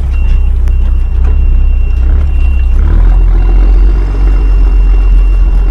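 5-ton military truck's diesel engine running under way, a loud steady low rumble. A thin high steady tone comes and goes over it, and small knocks and rattles are scattered through.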